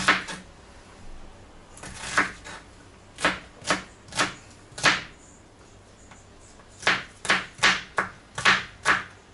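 Kitchen knife chopping an onion on a cutting board: about a dozen separate sharp strikes in an uneven rhythm, in two runs with a pause of about two seconds in the middle.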